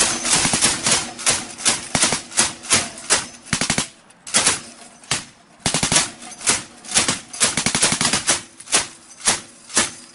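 Machine gun firing loud, rapid strings of shots, with short breaks about four and five and a half seconds in.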